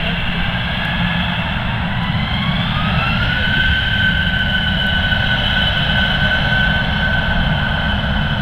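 Airbus A321 jet engines running at takeoff power on the takeoff roll. A whine rises in pitch a couple of seconds in and then holds steady over a loud, constant rumble.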